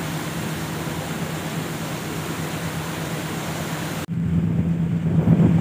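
Steady rushing hiss of the ship's wake and air with a low steady hum from the passenger ship KM Kelimutu running at sea. About four seconds in it cuts suddenly to louder, lower wind buffeting the microphone, the hum still under it.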